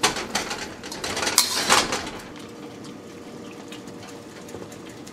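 A cooking utensil scraping and clinking against a metal pan as the braised pieces are stirred through the sauce, in a run of short knocks during the first two seconds. After that only a quiet steady noise remains.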